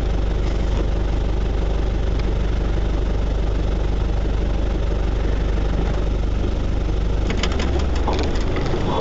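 An off-road 4x4's engine running steadily at low speed, heard from inside the cabin, with a few short rattles about seven seconds in.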